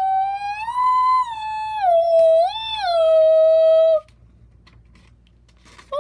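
A high voice singing long wordless notes that slide slowly up and down in pitch, stopping about four seconds in; another note starts right at the end.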